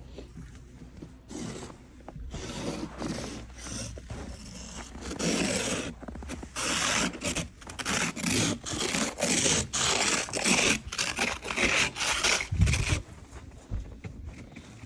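Snow scraping and crunching in a run of short strokes, about two a second, growing louder about five seconds in, with a low thump near the end.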